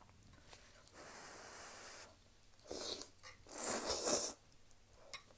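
Person slurping ramen noodles off chopsticks: a short slurp just before three seconds in, then a longer, loud slurp about a second later. A quieter, even hiss comes for about a second before them.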